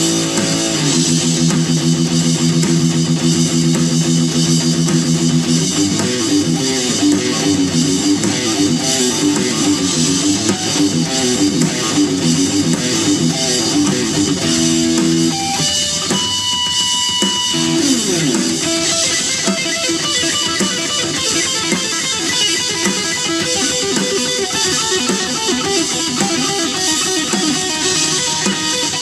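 Electric guitar playing a hard-rock instrumental jam. Held notes for the first several seconds give way to fast runs of notes. About halfway through there is a short break in which a single high note rings, then the fast playing resumes.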